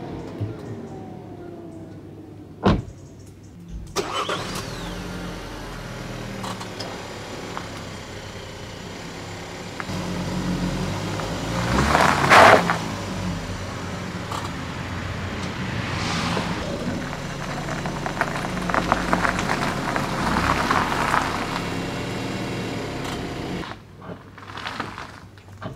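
A car door shuts, then a small petrol hatchback's engine runs as the car is driven slowly back and forth over a gravel driveway. The sound swells loudest about halfway through, as the car moves.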